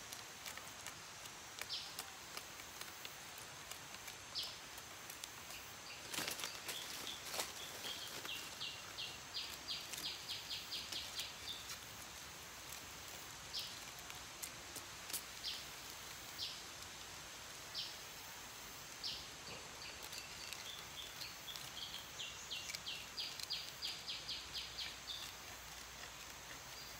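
Forest ambience: a bird repeats a short high note every few seconds and twice breaks into a quick run of rapid notes, over a steady high insect drone. A few sharp knocks and scrapes come from a machete scraping thorns off a plant stem.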